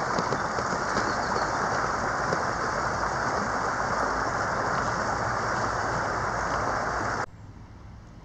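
Water gushing out of an outlet in a stone wall and splashing across stones, a steady rushing close by. It cuts off abruptly near the end, leaving a much quieter faint background.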